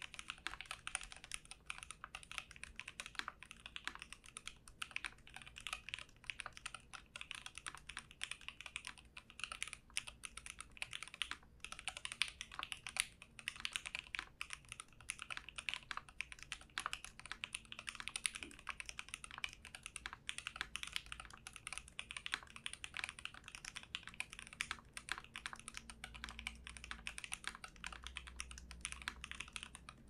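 Fast continuous typing on a Jubi custom mechanical keyboard fitted with lubed JWK H1 linear switches with Cherry top housings, mounted in an aluminum full plate; a dense, rapid stream of keystroke clacks.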